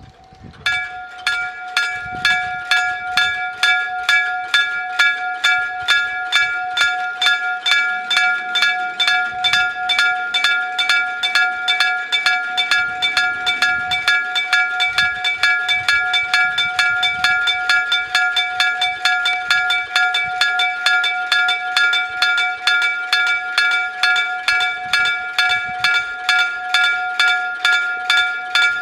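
Electric bell of a Japanese level crossing ringing its warning, an electromagnetic hammer striking a gong in a rapid, even run of metallic strikes; it begins about a second in, the signal that a train is approaching.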